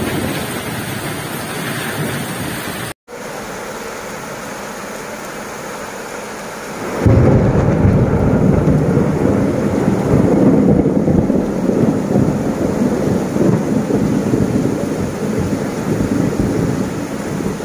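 Torrential rain and floodwater rushing, with a loud, deep rumble from about seven seconds in. The sound cuts out for an instant about three seconds in.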